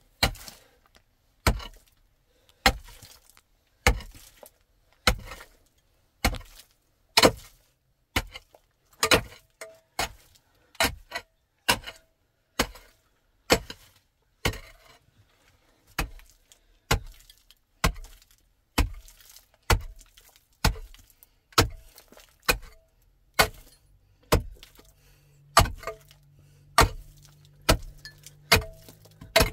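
Pickaxe blows striking into a hard earth floor, a steady run of sharp thuds about once a second that comes faster in the second half.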